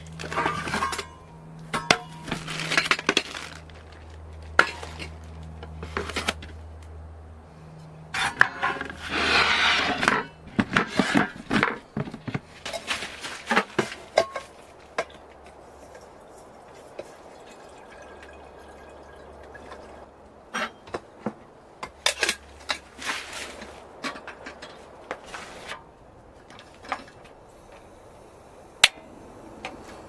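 Camping cookware and utensils clinking and knocking as they are handled in a plastic storage box, with water running from the spigot of a collapsible water jug.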